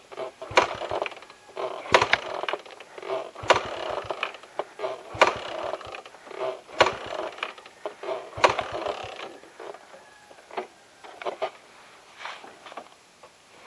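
Irregular mechanical rattling on a moving motorcycle, with a sharp knock every second or so that thins out after about ten seconds.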